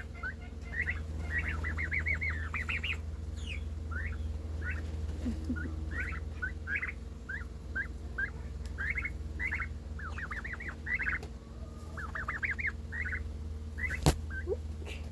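Pet turkeys calling: a long series of short, high, whistling chirps, some single and some in quick runs of several, over a steady low hum. A single sharp click near the end.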